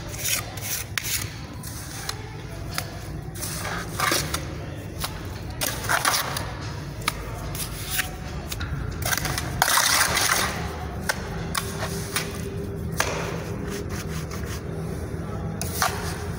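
Steel hand trowel scraping and smearing wet cement mortar over brick edges in short, irregular strokes, the longest and loudest stroke near the middle.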